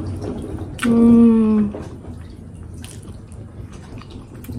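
One short hum from a person's voice about a second in, a bit under a second long and falling slightly in pitch, over a steady background hiss.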